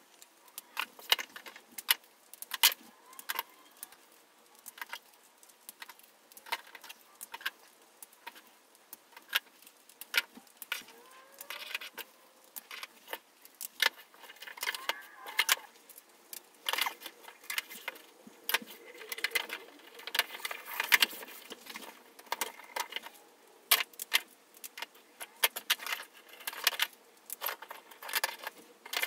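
Plastic toy train track sections from a Lionel battery-powered set being handled and snapped together: irregular sharp clicks and light plastic clatter.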